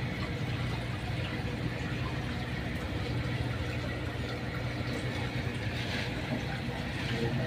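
A steady low mechanical hum under an even hiss of moving water, with no clear change throughout.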